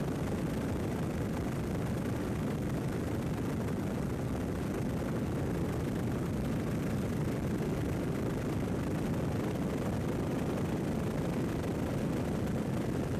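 Steady low rumble of helicopter engine and rotor noise, as heard from inside the aircraft filming from above.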